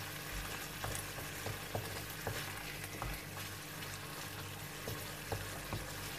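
Thick tomato pizza sauce sizzling in a frying pan while a wooden spoon stirs it, with light irregular taps and scrapes of the spoon against the pan. The sauce is being cooked down until its water is gone.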